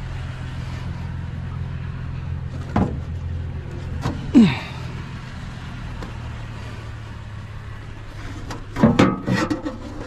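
Vehicle engine idling with a steady low hum, under clanks and knocks of cut-up stainless steel stove panels being loaded into the vehicle. The loudest knock comes about four and a half seconds in with a short falling squeal, and a cluster of clatter comes near the end.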